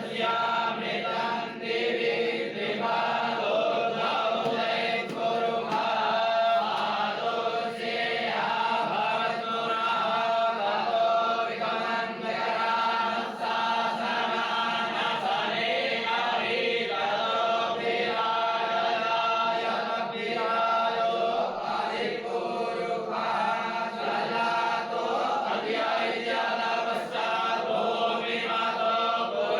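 A group of voices chanting together in unison, steady and unbroken.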